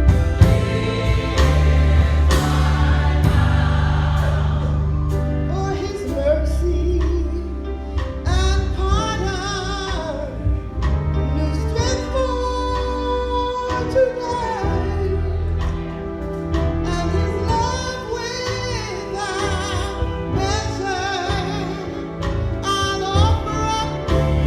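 Gospel choir singing with instrumental accompaniment. The low accompaniment drops back after about six seconds and returns near the end.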